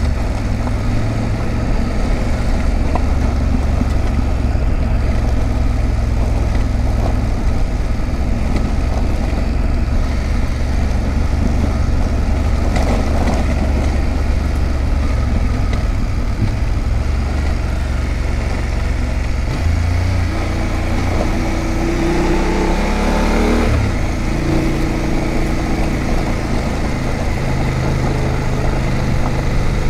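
BMW F850GS's parallel-twin engine running steadily as the motorcycle rides along a dirt track. A little past twenty seconds in the revs climb and then drop suddenly, like an upshift, before settling back to a steady run.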